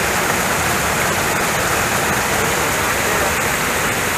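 Shallow mountain stream running fast over rocks and boulders close by, a steady, even rush of water.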